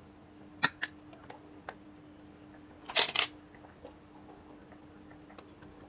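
Pliers snipping red single-core electrical cable: two sharp snaps under a second in, then a louder pair of snaps about three seconds in, with faint handling ticks between.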